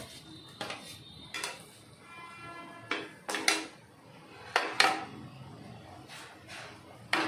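Steel utensils clinking against a steel kadhai as cashews are tipped from a plate into hot oil and stirred with a slotted spoon: a string of sharp metallic clinks at irregular intervals.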